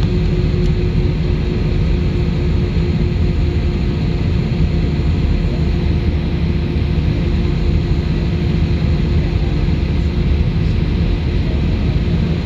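Cabin noise of an Airbus A320 with its IAE V2500 engines at low taxi thrust, heard over the wing as the airliner rolls slowly: a steady rumble and hiss with a steady low hum, no spool-up.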